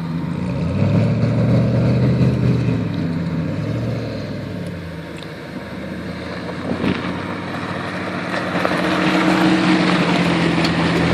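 Four-wheel-drive vehicle's engine working hard on sand, its revs and loudness rising, easing off around the middle, then building again near the end.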